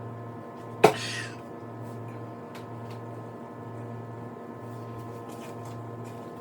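A plastic 2-liter bottle of Coca-Cola opened: a sharp crack a little under a second in, then a short fizzing hiss. A steady low electrical hum runs underneath.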